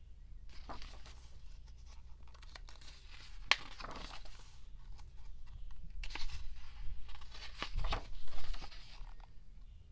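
Paper and plastic packaging crinkling and rustling in the hands as album inserts are pulled out and handled, with a sharp click about three and a half seconds in and the loudest crinkling near the end.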